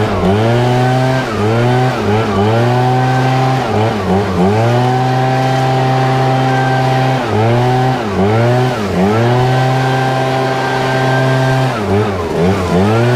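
ECHO PB-8010 backpack leaf blower's two-stroke engine at full throttle with a loud rush of air. The engine note drops briefly and climbs straight back up again and again, in quick clusters, as the throttle trigger is let off and squeezed.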